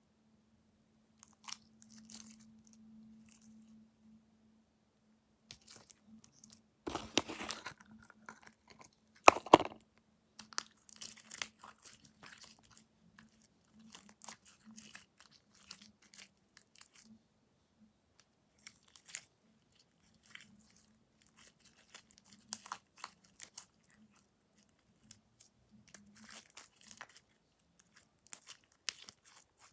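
Homemade glue slime being kneaded and stretched by hand, making irregular sticky clicks, crackles and squelches, with two louder squelches near the middle. The slime is still sticky, not yet fully activated.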